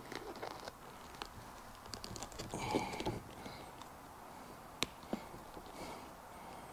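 Faint handling noise of a new seat cover being tucked into the side of a car seat: light rustling and scattered small clicks and taps, with one sharper click about five seconds in.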